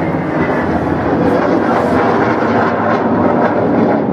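A jet aircraft flying overhead, its engine a loud, steady rushing roar.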